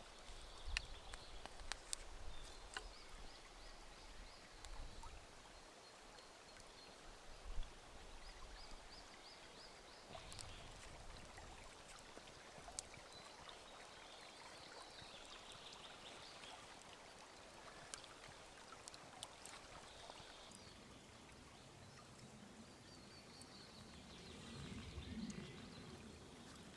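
Faint outdoor campfire ambience: scattered small crackles and clicks over a soft background hiss, with a few soft high chirping trills on and off.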